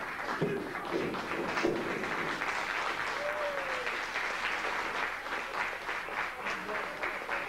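A small crowd applauding, with dense clapping throughout and voices mixed in.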